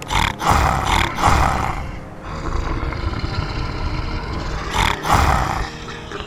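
Big cat roaring: two or three loud roars in the first two seconds and another about five seconds in, with a low rumble between them.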